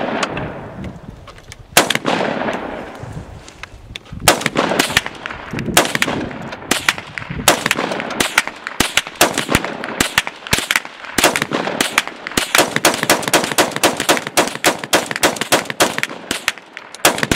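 AR-15 rifle fired semi-automatically. The first few shots come a second or two apart, each followed by an echo, then from about halfway through the shots come in rapid strings of several a second.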